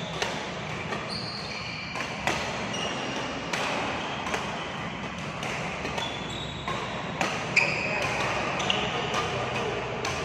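Badminton rally in a hall: rackets hitting the shuttlecock in sharp cracks at an irregular pace, about one a second, with short high squeaks of shoes on the court and a din of distant voices behind.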